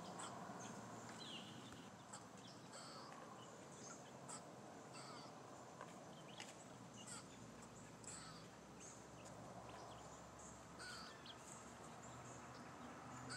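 Near silence in the woods, with faint, scattered short high chirps and calls now and then.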